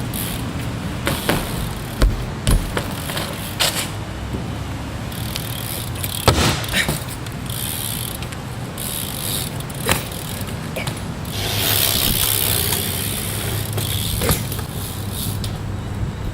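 BMX bike's rear hub ratcheting, with scattered sharp clicks and knocks from the bike.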